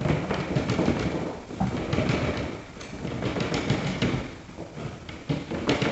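A bundle of HDMI and RG6 coaxial cables being fed by hand down through a wall-box opening into a wall cavity with a shaking motion: irregular rustling and scraping of the cable jackets against the drywall edge, with scattered knocks.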